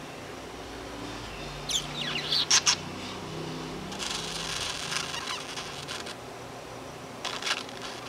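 Pet budgerigar making beatbox-like mouth sounds it has picked up from people: a few sharp clicks and short falling chirps, then a scratchy high chatter, then another quick run of clicks near the end.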